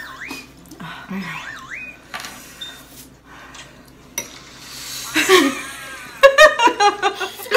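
Women's voices with no clear words: a rising-and-falling whimper in the first two seconds, then laughter and vocal sounds, loudest near the end.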